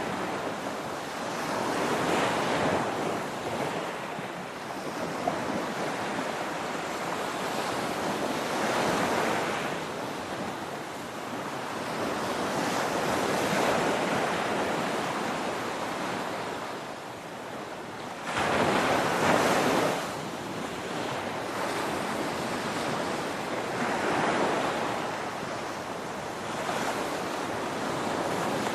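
Ocean surf: waves breaking and washing up, rising and falling every few seconds, with the biggest wave crashing a little past halfway.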